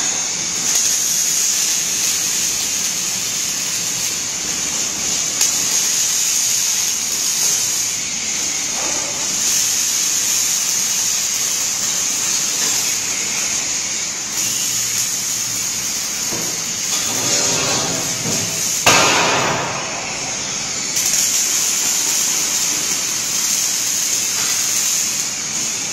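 Robotic arc welder's arc hissing and crackling steadily as it welds a steel grid frame, dropping out briefly now and then between welds. A louder sudden noise stands out about two-thirds of the way through.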